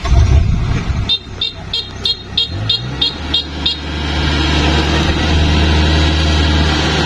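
Rice combine harvester's diesel engine running, with an electronic warning beeper sounding about nine short high beeps, roughly three a second, in the first half. The engine speeds up as the beeping ends, then runs steadily.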